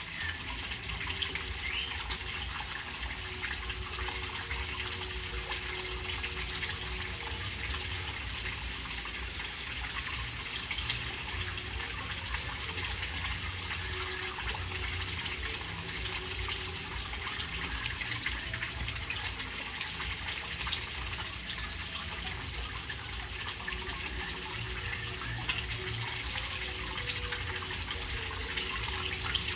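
Steady splashing of water pouring into a small koi pond from an inlet at its back corner, a continuous even rush with a low rumble beneath.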